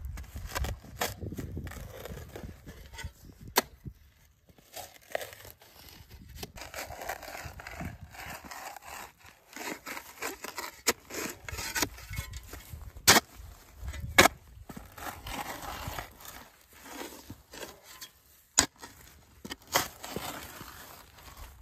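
A spade digging into wet, grassy soil: the blade scraping and tearing through turf and earth, driven in by foot, with scattered sharp clicks.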